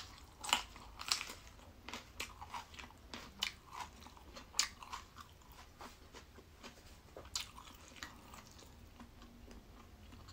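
A person biting into and chewing a raw long red chili pepper close to the microphone: crisp crunches every second or so, growing sparser and softer towards the end.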